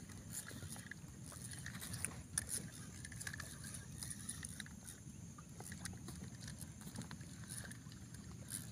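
Faint lapping water with scattered small clicks and knocks while a hooked fish is being reeled in toward the boat.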